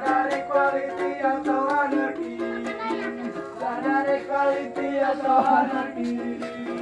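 Strummed acoustic music on a small ukulele-like string instrument, with sung notes held over the strumming.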